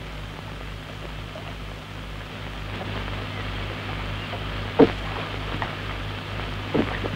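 Steady hiss and low mains hum of an old film soundtrack, with two short knocks, one a little before the end and one near the end, from the oars of a rowboat.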